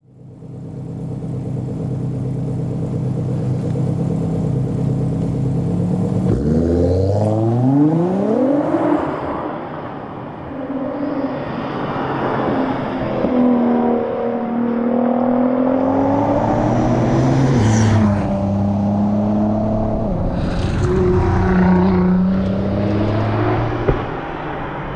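Nissan R35 GT-R's twin-turbo 3.8-litre V6 idling steadily, then about six seconds in it pulls away hard, the revs climbing quickly through several upshifts. After that the revs rise and fall, with a sharp crack near the end.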